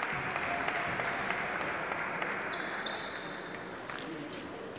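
Sports-hall ambience with a few light clicks of a table tennis ball bouncing, and short high shoe squeaks on the court floor near the end.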